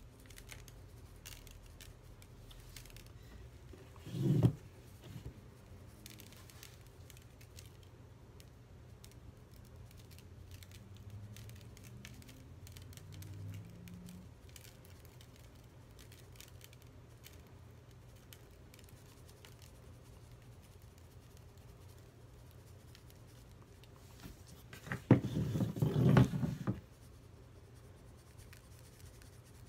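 Chunky glitter being shaken from a plastic shaker bottle onto a metallic charger tray: faint scattered pattering and ticks. A brief loud knock comes about four seconds in, and a longer loud bout of rustling and knocking as the tray is handled comes near the end.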